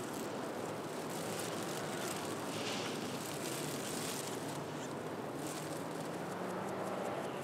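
Steady hiss-like background noise with no distinct event.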